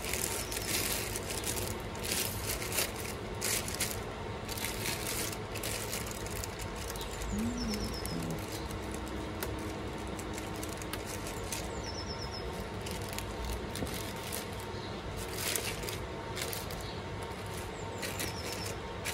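Clear plastic packaging crinkling and rustling in irregular bursts as a circular saw blade is handled and unwrapped from its bag.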